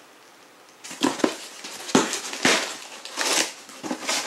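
Cardboard box packaging being crushed and torn by hand, starting about a second in as a run of loud crackling, rustling bursts with a few sharp knocks.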